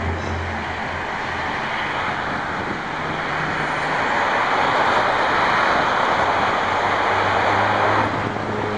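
Steady rushing noise with a faint low hum, swelling through the middle and easing about eight seconds in.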